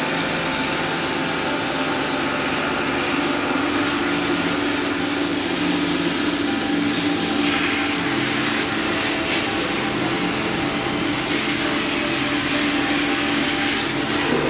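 Pressure washer running steadily: a constant motor-and-pump hum under the hiss of its water jet.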